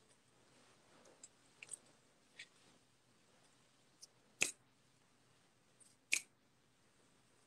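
A handful of faint, short clicks and ticks over quiet room tone, with two louder ones about four and a half and six seconds in.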